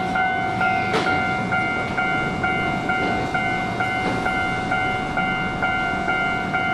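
Keihan 6000-series electric commuter train standing at a station platform with its doors open: a steady electrical hum with a high tone that pulses about twice a second, and one sharp click about a second in.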